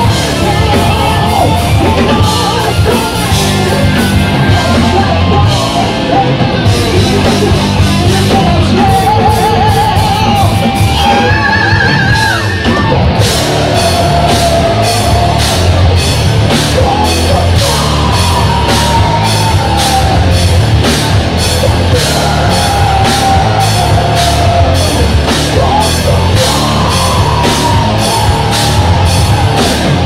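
Rock band playing live: electric guitars and a drum kit with a steady, driving beat, and a male singer's voice over them.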